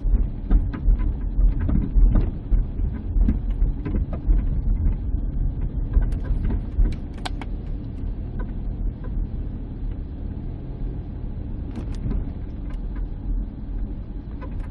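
Minivan road rumble and front-suspension knocks, heard in the cabin and through the speaker of a Steelman wireless ChassisEar receiver relaying a transmitter clamped on the front suspension. Scattered knocks and clicks fill the first half, then it settles to a steadier rumble.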